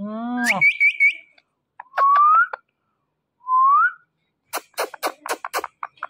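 Indian ringneck parakeet and its owner exchanging sounds up close: a brief rising voice, quick high chirps, two short rising whistles, then a rapid run of about ten sharp clicks near the end.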